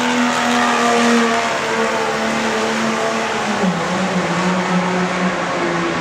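1998 Dodge Ram's Cummins inline-six diesel running hard under load while pulling the sled. The revs drop sharply about three and a half seconds in and then hold at a lower, steady pitch.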